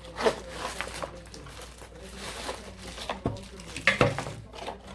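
Product packaging being opened and handled: plastic and cardboard rustling and crinkling, with several sharp clicks and knocks, the loudest a few seconds in.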